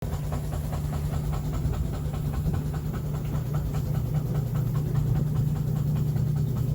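1920s Ingersoll Rand reciprocating air compressor, powered by an old 5 hp GE electric motor, running steadily with a rapid, even pumping beat over a steady hum. The motor spins the pump faster than it should.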